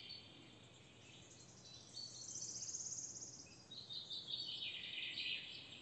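A small bird singing faintly: a fast trill about two seconds in, then a run of warbled chirps.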